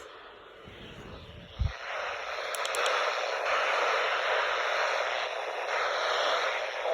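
Steady hiss of static from a NOAA weather radio receiver on an open, dead-air channel. It jumps louder after a short low thump about a second and a half in.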